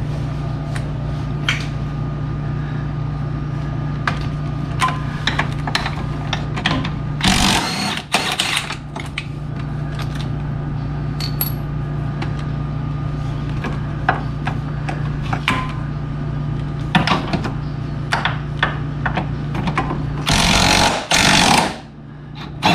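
A power tool loosening bolts in two short loud bursts, one about seven seconds in and one near the end. Between them come scattered clicks and knocks of tools on metal, over a steady low hum.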